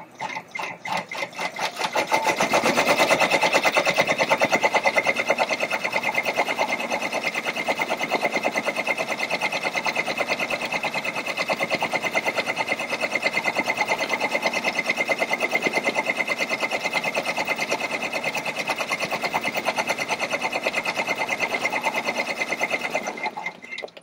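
Baby Lock multi-needle embroidery machine stitching through a cap held in its cap frame, in a fast, even needle rhythm. It picks up to full speed over the first couple of seconds, runs steadily, then stops just before the end.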